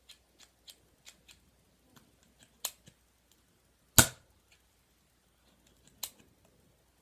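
Plastic Nerf blaster being cocked and dry-fired by hand: light ticks at first, then sharp clicks, the loudest about four seconds in and another about two seconds later. The mechanism is stiff to pull back.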